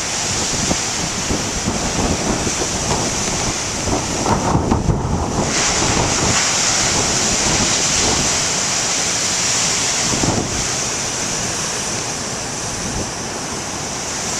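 Big ocean waves breaking: a continuous rush of surf, with wind buffeting the microphone that is strongest about four to five seconds in.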